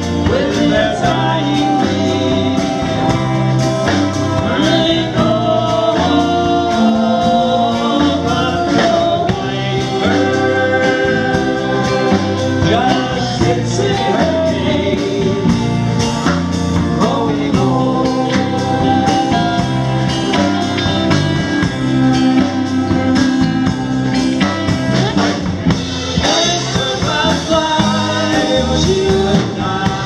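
A live rock band playing: electric guitars and bass with a singing voice.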